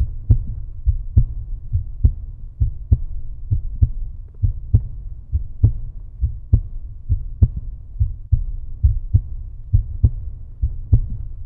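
Outro background music with a low repeating bass beat and light clicks on each stroke.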